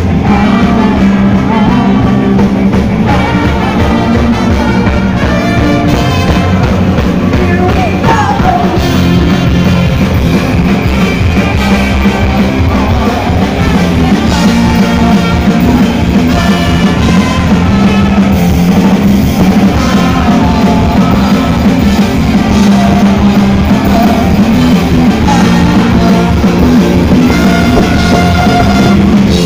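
Live rock band playing loud through a PA: electric guitar, bass guitar and drum kit with a lead vocal singing over them.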